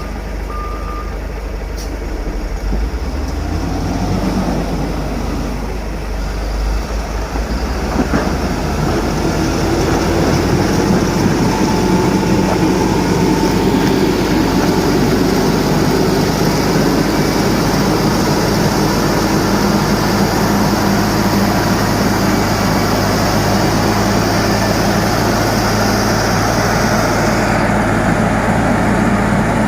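Heavy diesel engine of road-building machinery running steadily. A reversing beep sounds at the very start, and about eight to ten seconds in the engine grows louder and stays there.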